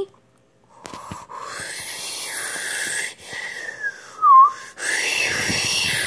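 Wind sound effect for a strong gust: two long whooshing rushes with a whistling tone gliding through them, and a short, loud whistled note between them a little past four seconds in.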